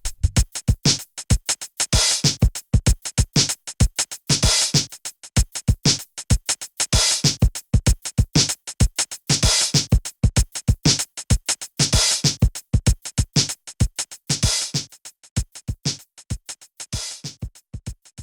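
Background music: a hip-hop drum-machine beat, growing quieter near the end.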